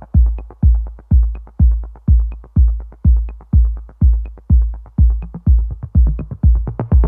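Electronic background music: a steady electronic kick drum beat about twice a second, with light high ticks between the beats.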